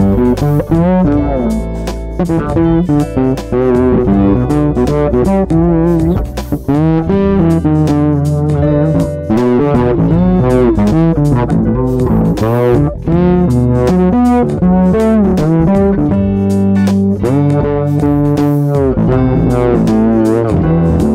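Two fretless electric basses playing a duet, the notes sliding and bending in pitch. One is a 1989 Blade bass with a Sadowsky preamp and Nordstrand pickups through a BOSS RV-5 reverb; the other is a Fender American Standard Jazz Bass through a TC Electronic 3rd Dimension chorus.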